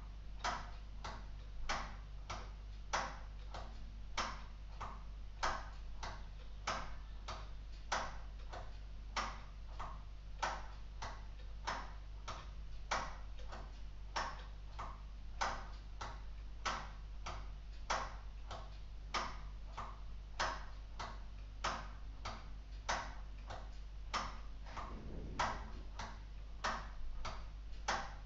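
LEGO Technic clock escapement ticking steadily, driven by a wind-up motor, at about two ticks a second with some ticks louder than others.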